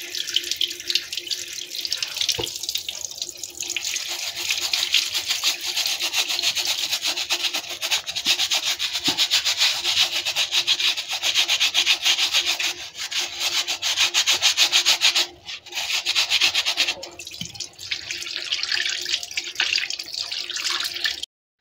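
Hands scrubbing a soapy plantain corm under a stream of running water, a fast continuous rubbing mixed with water splashing. The scrubbing breaks off briefly about two-thirds of the way through.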